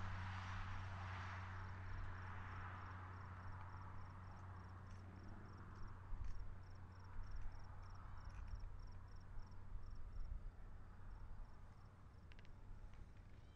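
Faint evening field sound: a cricket chirping steadily, about three short high chirps a second, that thins out near the end, over a low steady hum and the fading noise of a distant passing vehicle.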